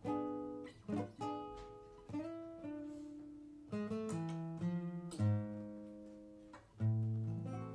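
Acoustic guitar playing a slow phrase: chords strummed and notes plucked, each left to ring and fade, with the strongest strums about five seconds in and again near the end.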